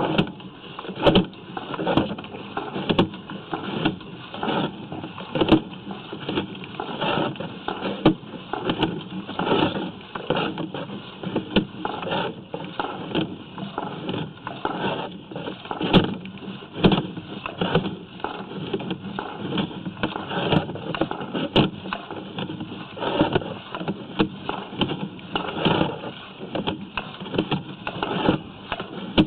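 Drain inspection camera gear being pulled back out of a sewer pipe: a steady clatter of irregular knocks, rattles and scrapes, several a second, over a hiss.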